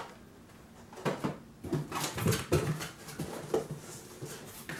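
A cardboard subscription box and a boxed vinyl figure being handled, with short whine-like vocal sounds coming and going.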